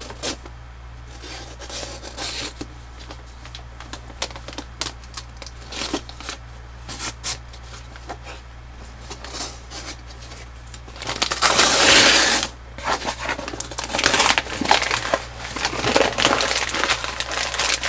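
Gift packaging being handled and torn open: scattered crinkles and clicks, then a loud rush of tearing and rustling about eleven seconds in, followed by more bursts of crinkling.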